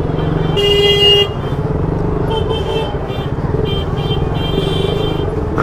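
Motorcycle engine running steadily at low speed, with vehicle horns honking over it: a loud honk about half a second in, then a string of shorter honks in the second half.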